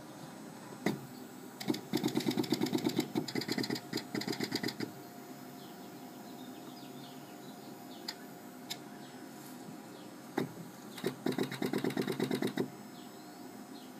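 Seeburg Model K 58-note player-piano pneumatic stack, freshly restored and being run on the bench: its pneumatics and action rods work in two bursts of fast repeated clattering strokes, with a few single clicks between.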